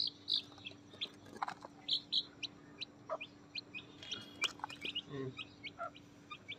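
Domestic chicks peeping: many short, high chirps, several a second, while they feed. A few lower calls come in among them, about a second and a half in and again about five seconds in.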